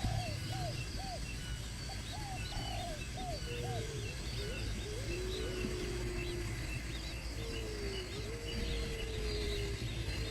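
Birds calling: a quick series of short arched calls for the first three seconds or so, then several longer drawn-out notes that glide in pitch, with faint high chirps throughout over a steady low background rumble.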